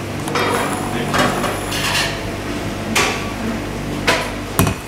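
Small knife scraping around the rim of an upturned porcelain plate as it cuts puff pastry on a stainless-steel counter, with several sharp clinks and knocks; the loudest come near the end as the plate is lifted away.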